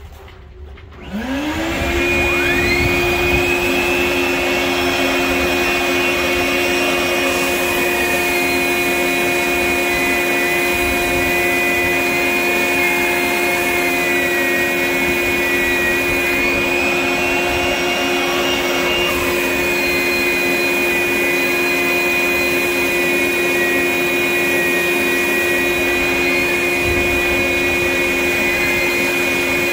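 A 9-inch dustless drywall sander with its built-in blower and the shop vacuum hooked to it starts up about a second in and spins up to a steady run. It sands the boat's painted bottom with 60-grit paper, with a high whine that wavers up and down in pitch.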